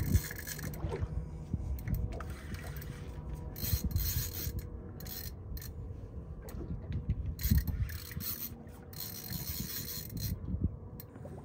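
Rubbing and scraping from a spinning rod and reel being worked against a heavy hooked fish, with irregular low knocks, over a faint steady hum.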